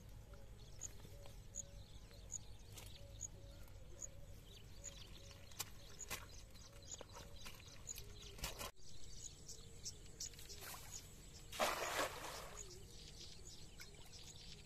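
Quiet outdoor ambience with birds calling and the light rustle and clicks of a nylon cast net being handled. About three-quarters of the way through comes a short splash, a cast net hitting the pond surface.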